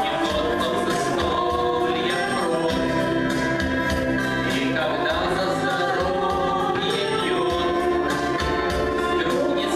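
A song sung into a handheld microphone over a backing track, amplified through the hall's speakers, with choir-like backing voices.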